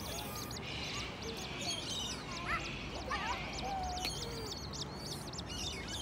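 Birds calling at the water's edge: a fast, steady string of high thin peeps, with a few lower rising, wavering calls about halfway through.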